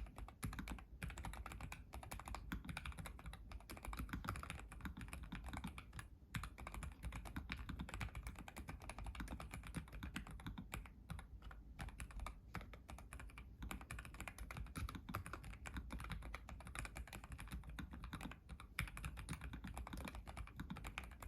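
Continuous typing on a NuPhy Air75 mechanical keyboard with lubed red Gateron linear switches. It is a fast, steady stream of keystroke clacks with a few brief pauses.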